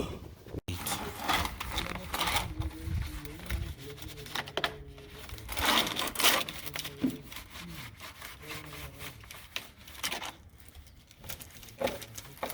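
Stiff cleaning brush scrubbing in quick, irregular strokes.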